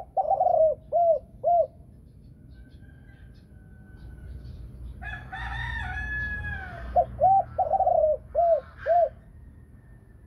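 Spotted dove cooing: a phrase of short, arched notes right at the start and another around seven to nine seconds in. Between the two phrases another bird gives a longer, higher call.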